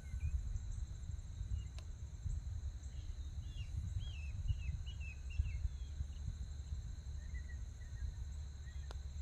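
Wind rumbling on the microphone over a steady high drone of insects, with a bird chirping a quick run of short notes in the middle. Near the end comes one sharp click: a putter striking a golf ball.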